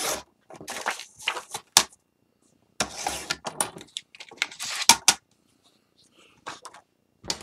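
The blade of a sliding paper trimmer runs through patterned cardstock, followed by paper rustling and sliding as sheets are picked up and moved on the desk. It comes as a string of short, scratchy scrapes with brief pauses between them.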